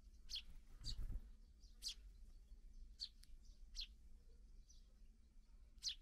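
Eurasian tree sparrows giving short, sharp, high chirps, about eight single notes spaced irregularly, with a brief low rumble about a second in.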